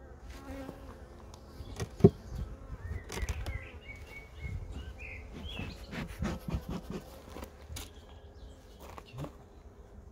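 Honeybees buzzing around an opened hive, with a sharp knock about two seconds in.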